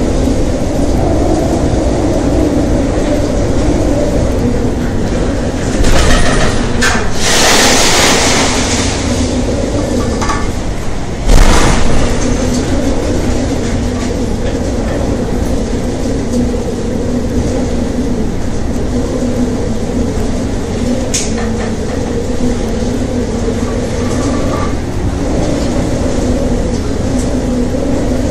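Steady low drone of a rescue ship's engines and the storm, heard inside the bridge as it plunges through heavy seas. About six to nine seconds in comes a loud rush of water noise, and at about eleven seconds a sharp, heavy thud as the bow slams into a wave.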